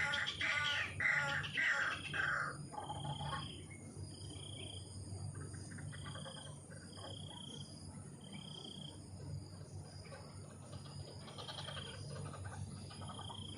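Birds calling: a quick run of loud, rough calls in the first couple of seconds, then short whistled notes repeated about every second. A steady high-pitched insect drone runs underneath.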